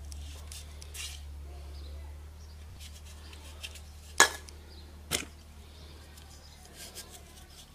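Shot-through aluminium beer cans being handled on a concrete block: light clicks and rattles, with two sharp knocks about a second apart, the first the louder.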